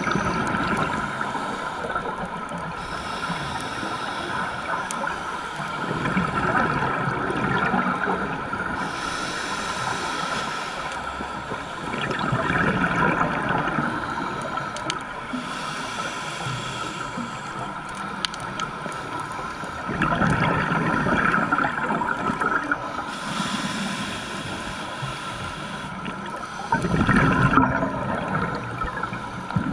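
Scuba regulator breathing heard underwater: rushes of exhaled bubbles come about every six to seven seconds over a steady water-noise bed, with a thin steady tone running under it.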